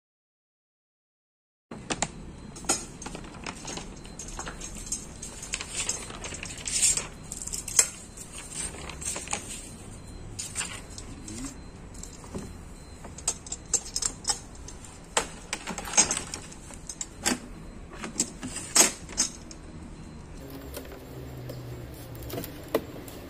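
Metal drawer slide rails and their small roller wheels being handled and fitted against a white plastic Olymplast drawer: irregular clicks, clinks and light knocks of metal on plastic. The sound begins after about two seconds of silence.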